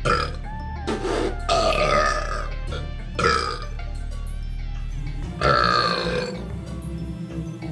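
A series of deliberate burps after drinking a soda: short ones at the start and about three seconds in, and longer drawn-out ones about a second in and about five and a half seconds in. Steady background music plays underneath.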